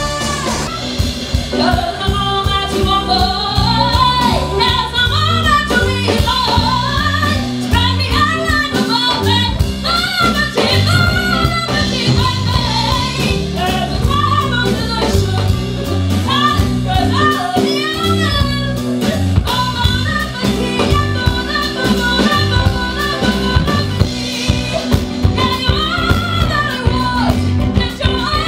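A woman singing live into a microphone, backed by a band with electric guitar.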